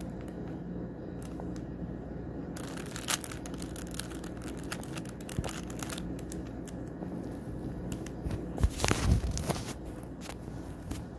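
Plastic Rubik's Cube being turned by hand: irregular clicks and scrapes as the layers rotate, with a louder flurry of turns late on.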